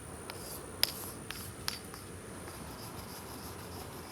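Four short, sharp clicks or taps in the first two seconds, the loudest about a second in, over a faint steady high-pitched hum.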